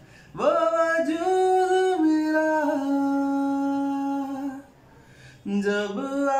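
An unaccompanied man's voice sings a wordless line. A note swoops up into held tones that step down in pitch, the voice breaks off briefly, and a new phrase begins.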